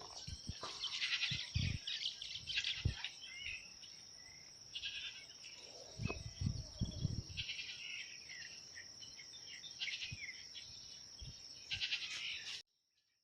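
Outdoor farm ambience: insects buzz steadily at a high pitch, with chirping calls and scattered low thumps. A short pitched animal call comes about six seconds in. All sound cuts off abruptly near the end.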